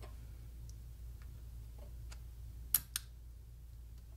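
Small plastic clicks and taps as a 3D-printed shutter speed dial is fitted onto a Pentax 645N camera's top plate: a few faint ticks, then two sharp clicks close together a little past the middle.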